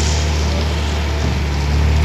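Diesel engine of a self-loading concrete mixer running steadily with a deep hum.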